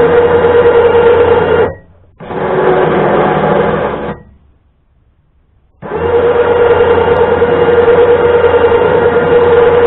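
Electric winch motor spooling in steel cable with a steady whine. It stops about two seconds in, runs again briefly at a slightly lower pitch, stops for over a second, then starts up again.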